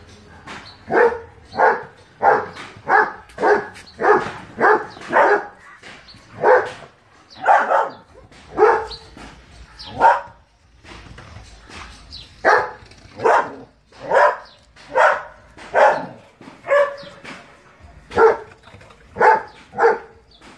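A German Shepherd dog barking over and over, about two barks a second, in bouts with brief pauses between them.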